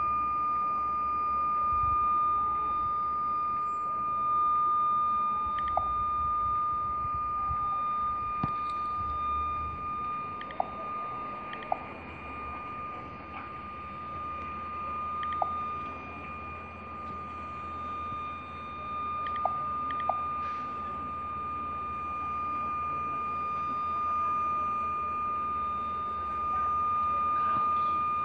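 Distant gunshots: about seven single sharp cracks at irregular intervals, two of them close together near the middle, over a steady high-pitched tone that never changes.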